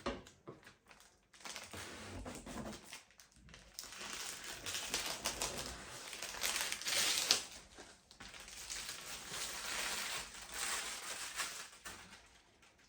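Packaging being handled during an unboxing: crinkling and rustling with scattered small clicks and knocks. It grows louder in the middle and again later, then fades out near the end.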